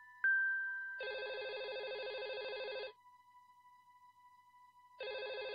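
A single chime note fading away, then a telephone ringing: a trilling ring of about two seconds, a two-second pause, and the next ring starting near the end. It is a call that goes unanswered.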